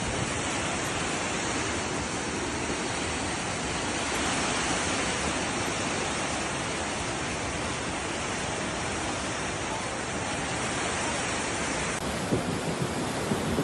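Steady, dense rush of a fast, muddy floodwater torrent pouring through a street and over a wall, with a few louder bumps near the end.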